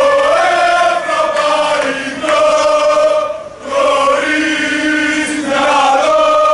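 A crowd of football supporters, mostly men, chanting a song in unison as they march, in long held phrases with a short break about three seconds in.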